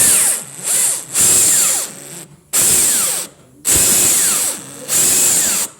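DeWALT cordless impact wrench triggered in six short bursts, each lasting under a second, its motor whining and then falling in pitch as it spins down after each release.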